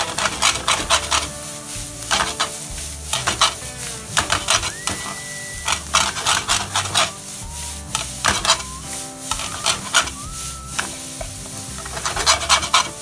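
Fried rice sizzling in a frying pan while a wooden spatula scrapes and turns it, in groups of quick strokes every second or two.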